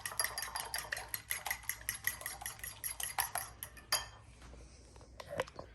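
A raw goose egg being beaten in a bowl: a utensil clinks rapidly against the side of the bowl, about eight strikes a second, and stops about four seconds in, leaving a few lighter taps.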